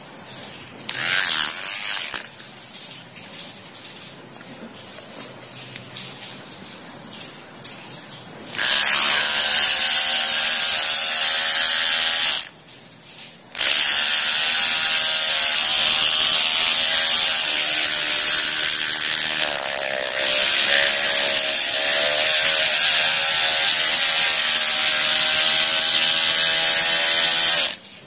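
Homemade hair clipper driven by a small DC motor, its blades buzzing loudly and steadily. It runs in two long stretches with a one-second stop in between, after several seconds of lighter clicking and handling.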